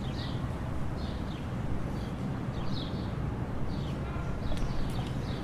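Short high chirps repeating roughly once a second, like a bird calling, over a steady low background rumble, with a few faint clicks near the end.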